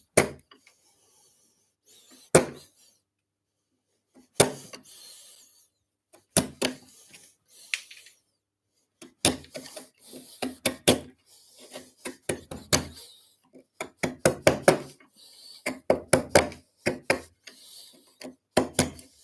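A 12 mm bevel-edge chisel pushed by hand through wood, paring waste from a halving-joint housing. It makes short crisp cuts and knocks as chips break away: single strokes a couple of seconds apart at first, then quick runs of strokes through the second half.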